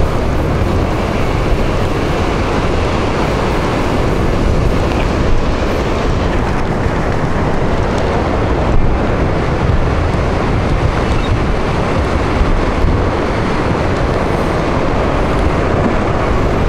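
Steady wind rumbling on the microphone over the wash of sea waves breaking against rocky cliffs.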